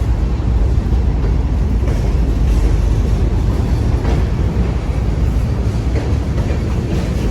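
Diesel-hauled freight train moving slowly during switching: a steady low rumble of the locomotive and rolling cars, with a few light knocks.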